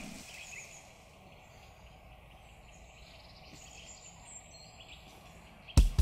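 Faint woodland ambience with a few short, high, thin bird calls. Music with drums and guitar comes in sharply just before the end.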